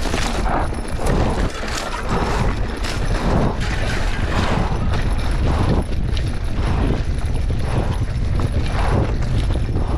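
Mountain bike descending a rough dirt singletrack at speed: a steady wind rumble on the microphone, with the bike clattering over the ruts in an uneven repeating rhythm.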